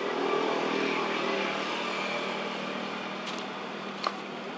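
Steady outdoor background hum and hiss that swells at the start and slowly fades, with a short sharp click about four seconds in.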